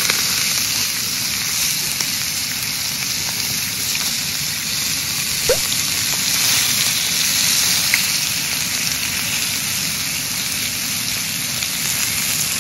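Frenched lamb rib chops sizzling steadily on a hot cast-iron grill pan, with a couple of small pops from the fat about halfway through.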